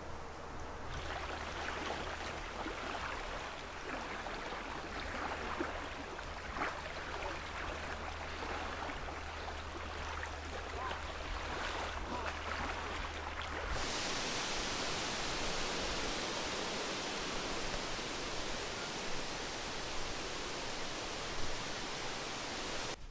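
Outdoor nature ambience: a steady rushing noise with faint crackles over a low rumble. About 14 seconds in it cuts abruptly to a brighter, even hiss.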